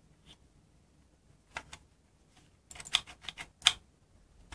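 Light plastic clicks and taps from handling a gaming mouse around its extendable rear palm rest: a couple of faint clicks about a second and a half in, then a quick cluster of sharper clicks near the end.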